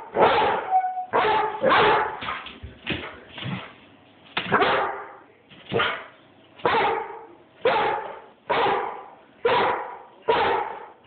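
Airedale terrier barking repeatedly at a person, a steady run of short barks about one a second.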